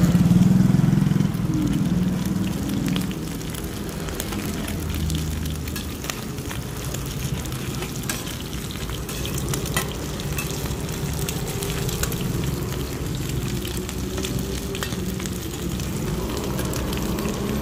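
Hoi tod (crispy Thai shellfish omelette) sizzling in oil on a wide flat steel pan, with metal spatulas scraping and clicking against the pan as it is cut and turned. A steady low hum runs underneath.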